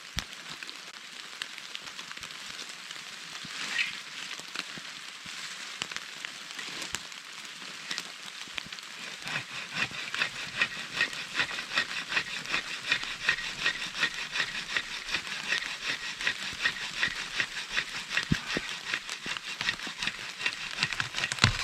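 Heavy rain falling, with a dense patter of drops ticking on a surface close by; the patter gets thicker and louder about nine seconds in.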